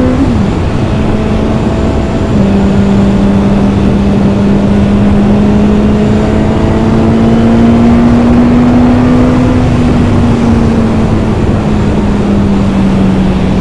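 BMW S1000R's inline-four engine running flat out at high road speed, its note held nearly steady as the running-in rev limiter cuts power at 8,500 rpm, with heavy wind rush over the rider's microphone. The pitch dips at the start, creeps slowly up, then eases off a little near the end.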